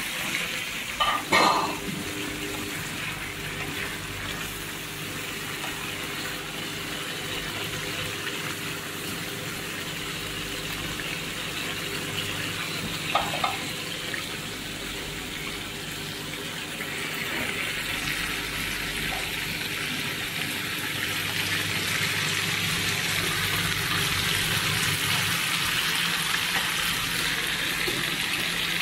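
Fish roe simmering and sizzling in a sauce in a frying pan on a gas stove, a steady bubbling hiss that grows louder past the middle. A couple of short knocks, one about a second in and one about halfway.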